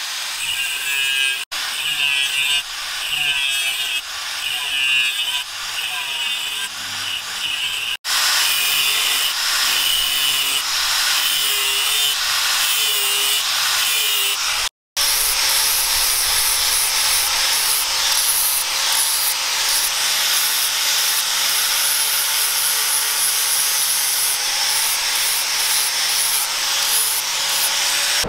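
Electric angle grinder with a sanding disc grinding a leaf-spring steel knife blank. The sound shifts in the first half and breaks off briefly a few times, then runs steady with a constant motor whine for the second half.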